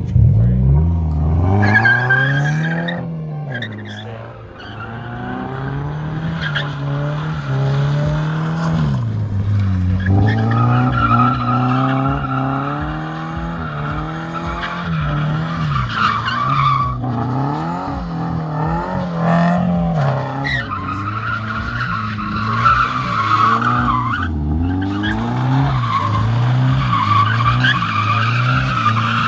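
Scion FR-S's flat-four engine revving up and dropping back again and again while drifting, its rear tyres squealing and skidding on the tarmac. The squeal breaks off briefly a few times as the car changes direction.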